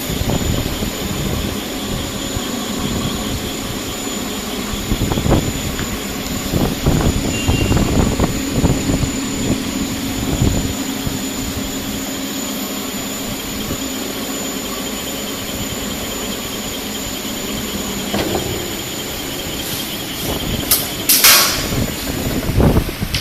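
High-speed CNC wire flattening machine running: a steady mechanical hum with a thin high whine, scattered knocks, and a brief loud hiss about three seconds before the end.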